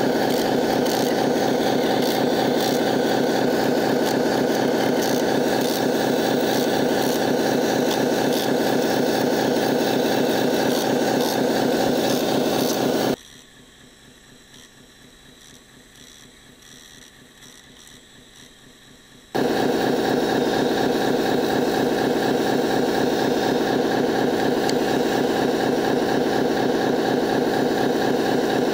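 Small electric motor and gearing of an RC truck during a winch recovery, running with a steady, even whir. It drops to much quieter for about six seconds near the middle, then resumes at the same level.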